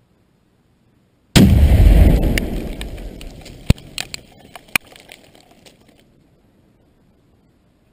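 A 5 lb charge of Shockwave binary exploding target (a Tannerite-type mix) detonating when hit by a .338 Lapua Magnum round. A sudden, very loud blast about a second in, then a rumble that dies away over about four seconds, with several sharp cracks in the tail.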